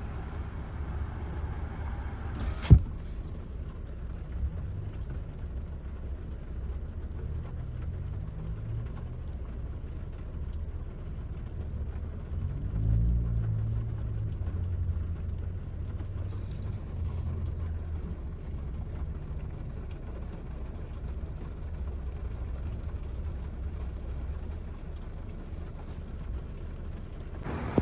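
Car running, a steady low engine and road rumble heard from inside the vehicle, with the engine pitch rising and falling briefly about halfway through. A single sharp knock stands out near the start.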